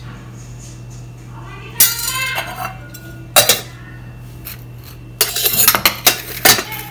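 Steel spoon and stainless steel bowls clinking and scraping as curd is scooped: a few clinks about two seconds in, a sharp one at about three and a half seconds, and a quick run of clinks near the end, over a steady low hum.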